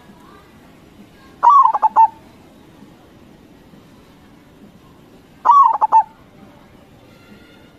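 Zebra dove (perkutut) cooing twice, about four seconds apart: each phrase is a falling opening note followed by three or four quick short coos.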